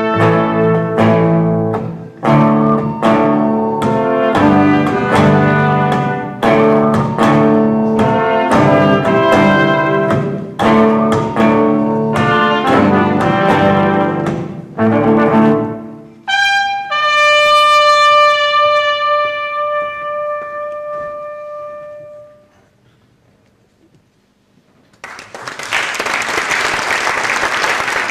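A live band with a brass section of trumpets and trombone plays short, punchy chords. About sixteen seconds in, the tune ends on one ringing note that fades out over several seconds. After a brief hush, audience applause starts near the end.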